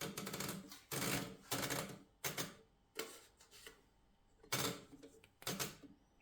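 Mercedes Model 6 typewriter's platen being turned to wind in a sheet of paper, its ratchet clicking in about seven short bursts.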